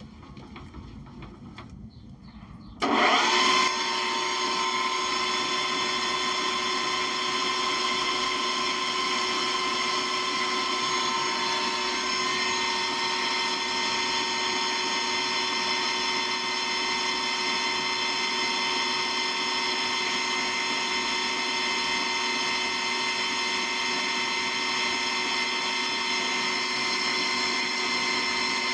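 Cyrrtec Profiturn 2865GC metal lathe spindle starting about three seconds in and running steadily at 2000 rpm, a many-toned gear whine from the headstock, which has just been refilled with ISO 46 bearing oil.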